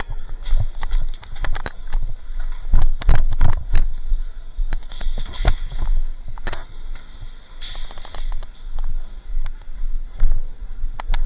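Airsoft guns firing: irregular sharp snaps and clicks, some coming in quick runs.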